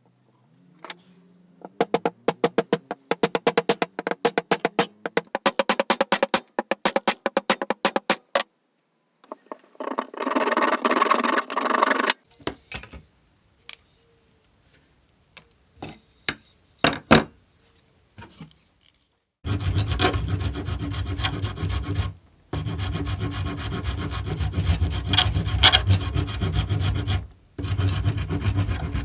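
Rubbing and rasping from hand work on an old planishing hammer, in several short stretches. First comes a fast run of sharp scraping strokes, then a brief burst of rubbing and a few scattered clicks. About two-thirds of the way in, a long steady rubbing starts, broken twice by short pauses.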